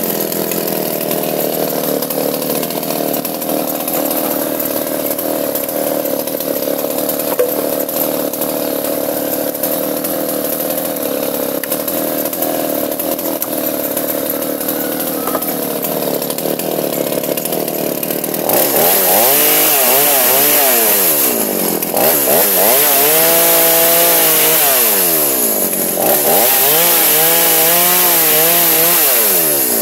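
Chainsaw engine running at a steady speed, then, about two thirds of the way in, revved louder with its pitch rising and falling several times.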